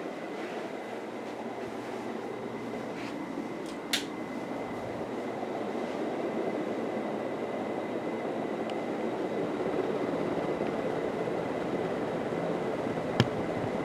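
1984 Casablanca Four Seasons ceiling fan running fast: a steady rush of air off the blades with a faint steady motor whine. A sharp click comes about four seconds in, after which the rush grows gradually louder, and another click comes near the end.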